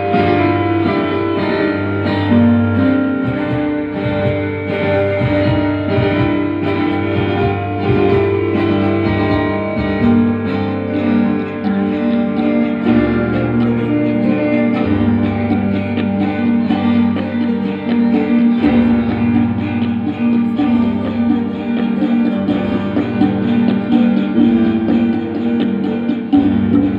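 Live instrumental band music: electric guitar, electronic keyboards and tabla playing together, over held low bass notes that change every few seconds.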